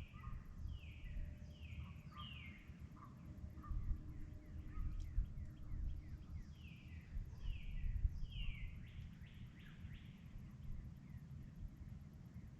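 Dawn chorus of songbirds: many short, clear whistled notes, each sliding downward in pitch, repeat over and over, with lower chirps mixed in. A steady low rumble of background noise runs underneath.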